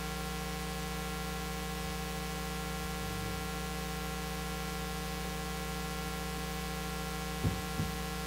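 Steady electrical hiss and mains hum from a church sound system, with a set of fixed steady tones. Near the end come two short knocks as a handheld microphone is handled and picked up.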